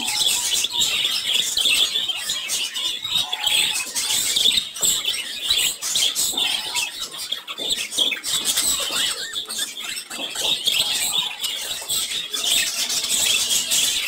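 Caged budgerigars chattering continuously, a busy stream of short chirps, squeaks and clicks.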